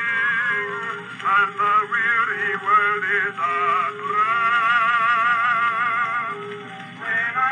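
Edison Standard Model B cylinder phonograph playing a blue four-minute cylinder record through its horn. The music is an acoustic recording of sustained, wavering melody notes, thin, with no deep bass or high treble.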